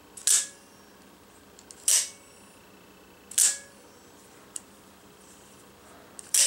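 Microtech Combat Troodon double-action out-the-front automatic knife firing its blade out and snapping it back, four sharp metallic clicks spaced about a second and a half apart. Some are followed by a faint ringing spring twang from the main spring.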